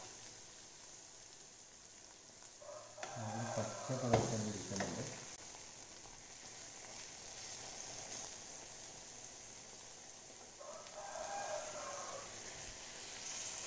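Chicken pieces sizzling softly on a flat griddle, dry-frying in their own fat with no oil, with a few spoon taps as they are turned. A rooster crows about three seconds in, and again more faintly near the end.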